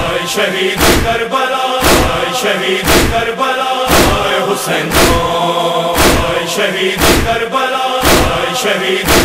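Noha sung by men's voices chanting together in a steady lament, kept in time by sharp chest-beating (matam) thuds at roughly one a second.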